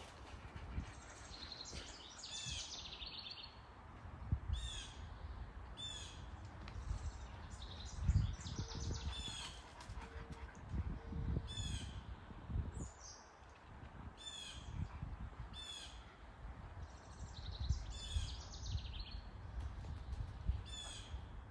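A bird calling over and over, short high harsh calls repeated every second or two, over a low rumble.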